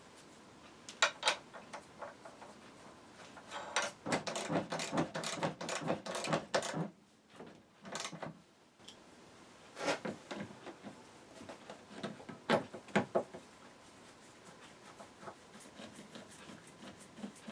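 Intermittent clicks and clunks of hand tools and metal seat-frame parts being handled, with a run of rapid clicking a few seconds in.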